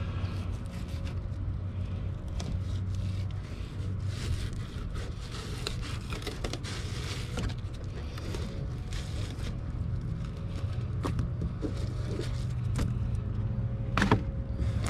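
Fillet knife slicing and scraping on a plastic cutting board with scattered light clicks, cutting the pin bones out of black margate fillets, over a steady low hum.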